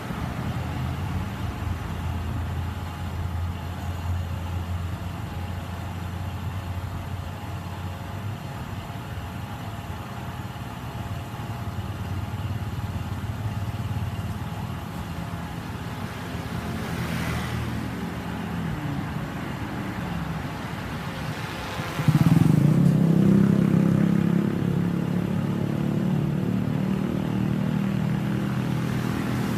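Motor vehicle engines running: a steady low hum, with a vehicle passing about two-thirds of the way through. A much louder engine sound starts abruptly soon after, rising slightly in pitch at first, and stays loud.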